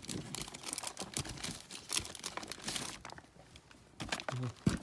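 Packaging being handled: irregular crinkling and rustling as fireworks are pulled out of the shipping box, easing off about three seconds in and picking up again near the end.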